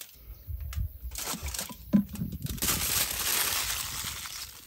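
Aluminium foil crinkling and crumpling as it is folded around a potato, with one sharp tap about two seconds in and a denser stretch of crinkling after it.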